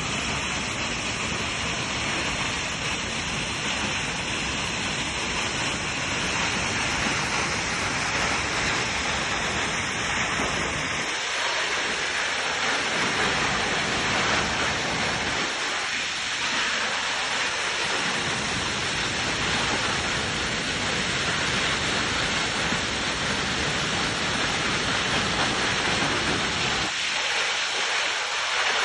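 Fitzroy Falls waterfall in full flow after rain: a steady, dense rush of falling water. Its low rumble drops away briefly about three times.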